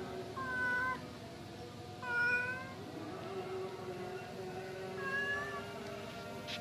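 A pregnant domestic cat meowing three times, short calls a second or two apart, over a steady hum.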